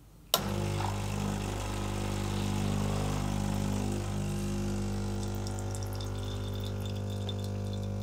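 Solis Barista Perfetta Plus espresso machine's vibratory pump switching on about a third of a second in, then humming steadily as it pushes water through the coffee puck during an espresso shot. With no over-pressure valve, the pressure climbs toward 13 bar, a sign that the coffee is ground a little fine.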